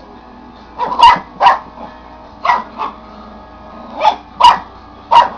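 Papillon puppy barking at a wind-up bee toy: about seven short, high barks, mostly in quick pairs about half a second apart.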